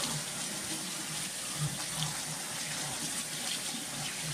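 Kitchen faucet running steadily into a stainless steel sink, the stream splashing onto a plastic cutting board lying in it.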